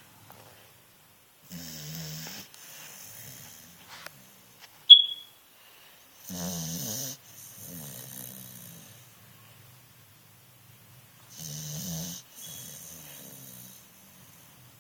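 Snoring: three long snores about five seconds apart, each followed by a breathy exhale. A single short, high squeak comes about five seconds in.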